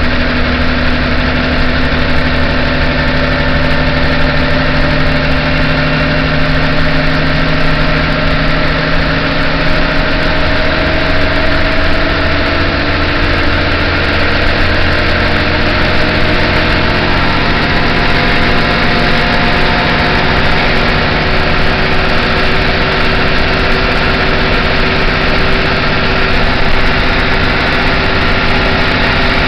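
City bus diesel engine heard from inside the passenger cabin with the engine hatch open, running loud and steady under way, its pitch drifting slowly up and down.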